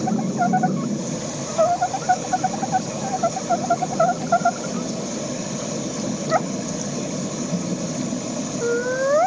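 Steady hiss of rain. Over it come runs of rapid, high-pitched pips, about five a second, in the first half, and near the end a rising, whistle-like glide.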